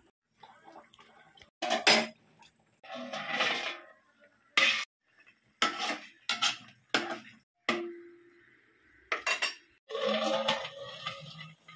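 Metal cookware clattering: an aluminium pot and a steel plate lid clinking and knocking about eight times, with two longer stretches of scraping, as the lid is set on the pot.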